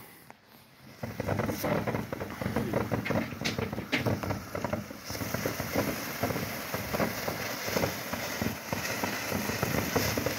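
A consumer firework going off: about a second in, a dense, rapid run of crackling and popping starts and keeps going without a pause.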